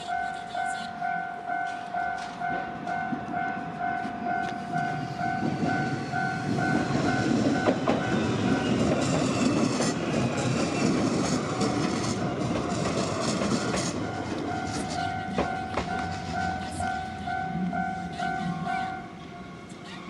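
Japanese level-crossing warning bell ringing, an evenly repeating electronic ding. About five seconds in, a train passes over the crossing with a rising rush and wheels clicking over the rail joints, drowning the bell for several seconds. The bell is heard again afterwards and stops about a second before the end.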